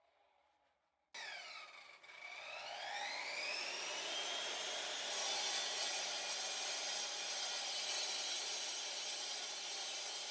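Electric concrete saw (Evolution R300DCT 12-inch) starting suddenly about a second in. Its motor whine dips and then climbs in pitch as it comes up to speed, then runs steady with a high-pitched whine.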